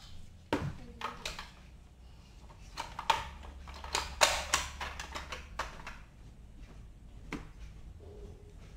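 Plastic toy ice-box playset and its small plastic pieces being handled: irregular clicks and knocks as the parts are pushed, opened and set down, a cluster of them about four seconds in.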